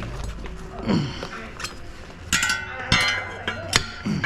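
Several sharp metallic clinks, each with a short ringing tail, coming a little over half a second apart in the second half, over a low background murmur.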